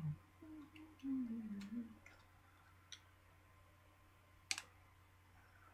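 A few sharp plastic clicks as a plastic pry tool works along the seam of an HTC Raider smartphone's housing against its snap clips; the loudest click comes about four and a half seconds in.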